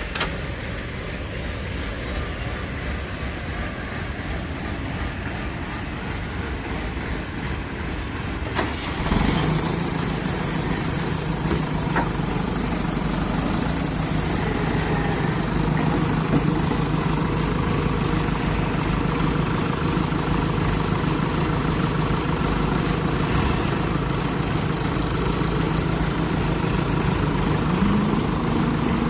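Backhoe loader's diesel engine starting about nine seconds in, then running steadily, with a high-pitched whine for about five seconds just after it starts and a slight rise in revs near the end.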